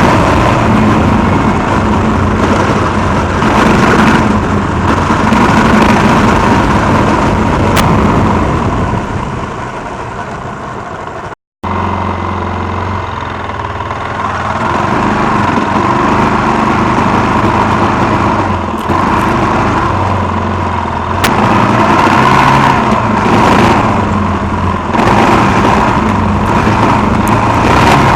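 Suzuki XF650 Freewind's single-cylinder four-stroke engine revving up and easing off as the motorcycle is ridden off-road on knobby tyres. The sound cuts out abruptly for a moment about eleven seconds in.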